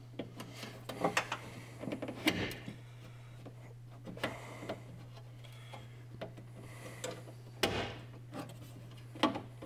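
Scattered light clicks and knocks of a car door's window glass and power window regulator brackets as the glass studs are pushed into the regulator slots. A steady low hum runs underneath.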